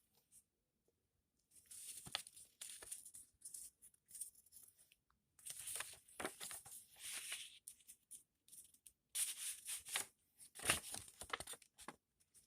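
Paper rustling and crinkling as a paper envelope is opened and photo prints are slid out of it, coming in three or four spells of a second or two each.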